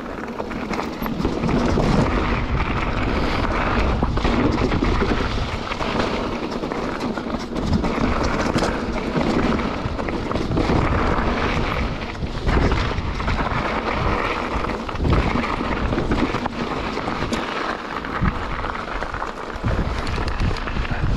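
Wind buffeting the microphone of a GoPro action camera on a moving mountain bike, with tyres rolling over a rocky gravel trail and the bike rattling through irregular knocks.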